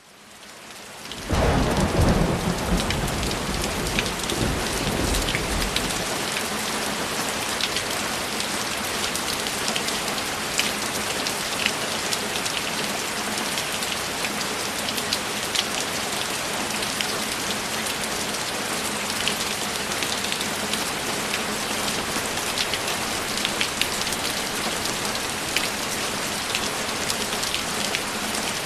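Heavy, steady rainfall with dense drop patter. It fades in at the start, and a loud low rumble of thunder comes in about a second in and dies away after about six seconds.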